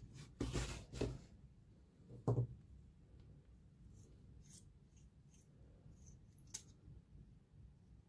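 Hands handling a metal tactical pen and its case: two brushing knocks in the first second and a louder knock about two seconds in, then faint ticks and scrapes as the pen's threaded barrel is unscrewed, with one sharp click shortly before the end.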